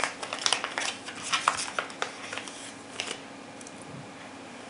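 Small clear plastic zip bag crinkling and crackling as it is opened and emptied by hand, with quick sharp clicks of handling; the crackling stops about three seconds in.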